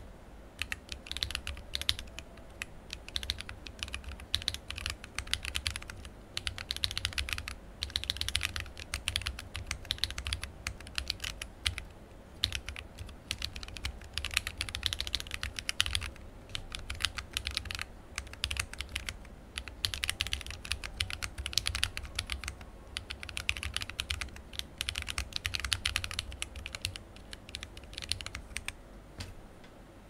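Typing on a Corne split mechanical keyboard with lubed Polar Holy Panda tactile switches in an acrylic sandwich mount, under PBT OEM keycaps: quick runs of keystroke clacks with brief pauses between bursts.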